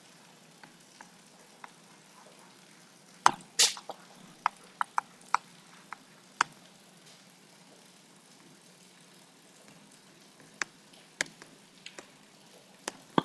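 Chalk tapping and scraping on a blackboard as words are written: scattered short clicks, with a longer scrape about three and a half seconds in.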